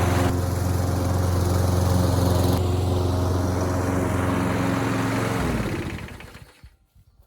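Briggs & Stratton Quantum single-cylinder engine on a Craftsman push mower running steadily, then winding down and stopping about five and a half seconds in. It runs well now that its broken bail cable has been replaced.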